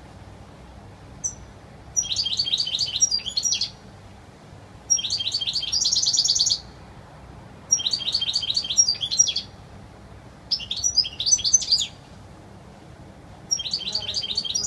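European goldfinch singing its wild song: five bursts of rapid, high twittering, each about a second and a half long with short pauses between, and a single short high note about a second in.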